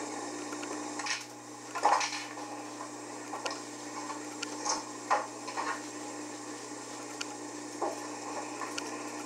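Billiard balls knocking and clacking on a pool table as a cat paws at and walks among them: a handful of irregular sharp knocks, the loudest about two seconds in, over a steady low hum.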